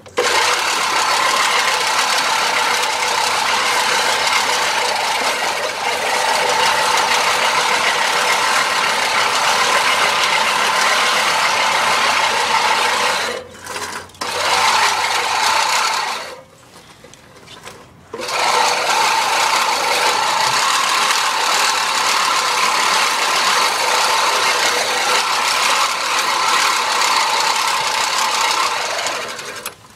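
Remington 16-inch push reel mower running through grass: the spinning reel whirs and its freshly sharpened blades cut against the bed knife. It stops twice briefly around the middle.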